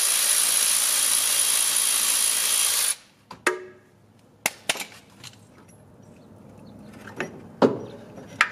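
A handheld power tool runs steadily for about three seconds, spinning out an AC compressor mounting bolt, then stops suddenly. After that come scattered light knocks and clicks as the compressor is worked loose from its bracket.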